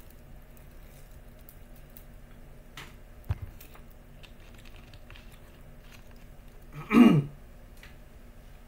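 Plastic water bottle being handled and its cap twisted open, with a few faint clicks and one sharp knock a few seconds in. About seven seconds in comes a short, loud voiced exhale that falls in pitch.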